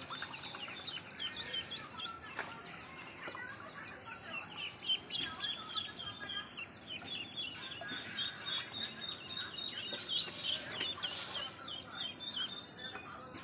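A brood of ducklings peeping constantly in quick, high chirps, with a few brief splashes of water in a plastic tub.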